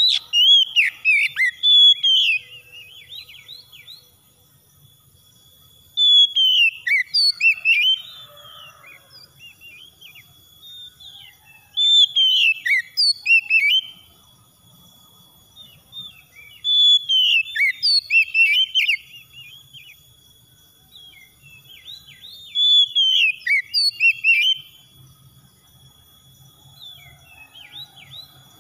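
Male Oriental magpie-robin singing: five bursts of varied whistled phrases, each about two seconds long, coming every five or six seconds. A faint steady high tone runs underneath in the gaps.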